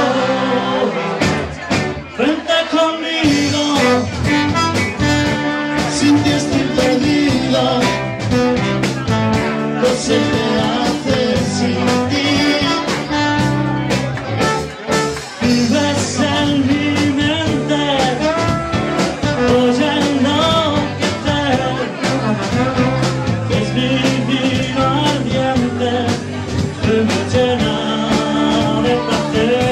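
Live band playing an instrumental passage: a trombone carries the melody over electric guitars and a steady beat.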